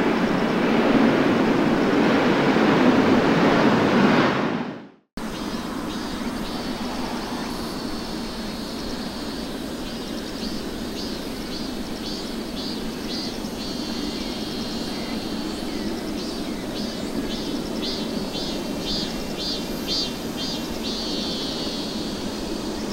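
Jet airliner engines running loud for the first few seconds, then fading and cutting off abruptly about five seconds in. After that comes a steady, quieter background hiss with repeated short high chirps from about ten seconds on.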